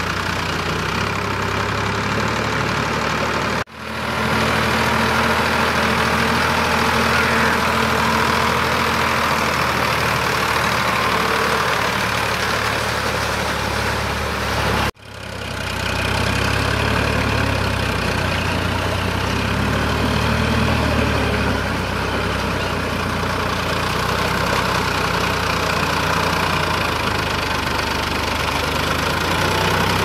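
Sonalika tractor's diesel engine running steadily under load as it pulls a rotavator on cage wheels. The sound drops out for an instant twice, about four and fifteen seconds in, at cuts in the footage.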